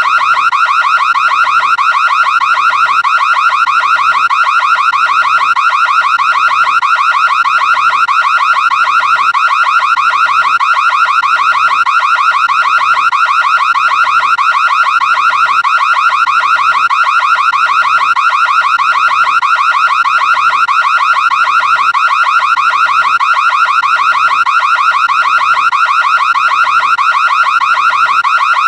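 ADT home security alarm sounding continuously after being set off: a loud, high-pitched electronic tone pulsing in a fast, even rhythm.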